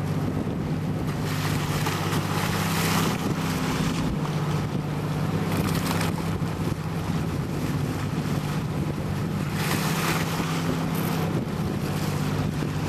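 Boat motor running steadily under way, with water rushing along the hull and wind on the microphone; the rushing swells louder several times.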